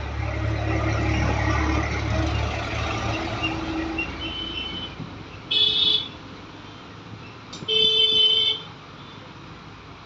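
A motor vehicle passes, its engine rumble swelling and then fading over the first few seconds. Then a vehicle horn toots twice, first briefly and then a little longer.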